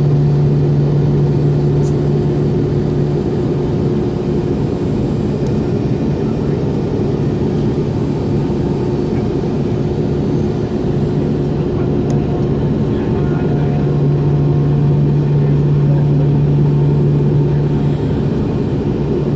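Steady cabin drone of an MD-90's rear-mounted IAE V2500 engines running at idle, with a low steady hum that drops out briefly twice.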